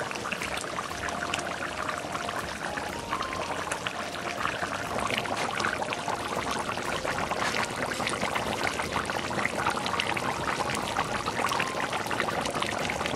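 Thick spicy braising sauce bubbling and popping around beef tendons in the pot: a dense, steady crackle of bursting bubbles.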